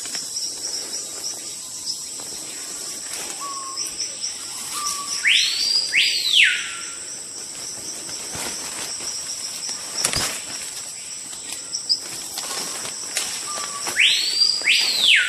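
Screaming piha (cricrió) calling twice, about nine seconds apart: each time a couple of soft low notes lead into a loud whistle that sweeps sharply up and then falls back down. A steady high insect drone and chirping insects run underneath.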